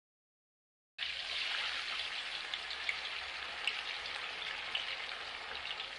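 Chicken pieces deep-frying in hot oil in an aluminium kadai: a steady sizzle with scattered small crackles and pops, starting abruptly about a second in.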